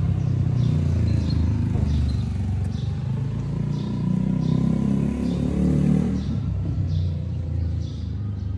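A motor vehicle's engine running close by with a low rumble, its pitch climbing to about six seconds in and then falling away as it quietens. Faint short high chirps repeat about every three-quarters of a second.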